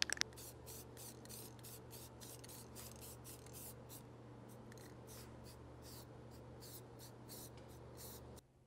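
Aerosol spray paint can spraying in short hissing bursts, about four a second, over a steady low hum; the spraying stops near the end.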